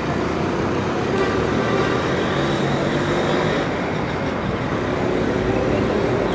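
Street traffic noise, with a motor vehicle's engine running nearby.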